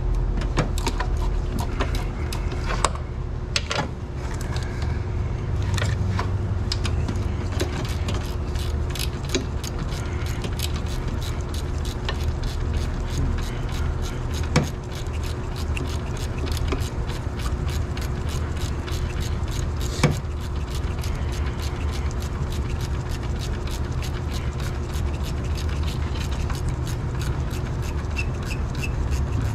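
Hand ratchet wrench clicking in quick regular strokes as an 18 mm engine-mount bolt is worked loose, with a couple of sharper metal knocks, over a steady low hum.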